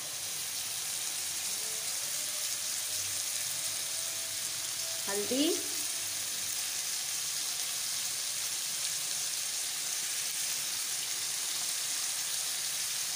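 Beef, onions and ginger-garlic paste sizzling in hot oil in a steel karahi, a steady hiss.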